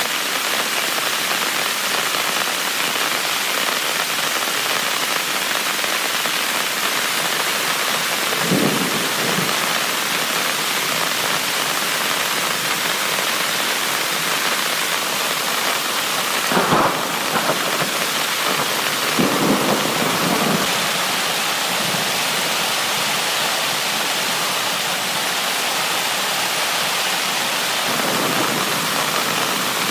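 Heavy rain pelting a tent, a dense steady hiss, with a few short louder rumbles of thunder, the strongest about 17 seconds in.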